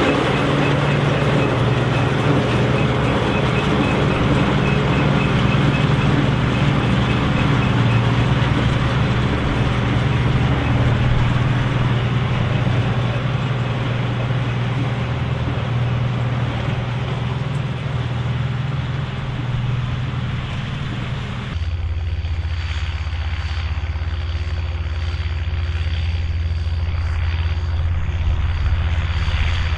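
Volvo BM turbo tractor's turbocharged diesel engine running steadily, with the turbo whistling. About two-thirds of the way through the sound changes abruptly to a deeper engine note with a thin steady high whistle over it.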